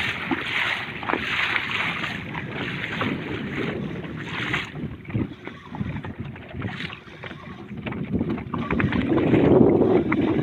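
Wind buffeting the microphone over the noise of a boat and the sea, with scattered knocks and a louder rush of wind and water near the end.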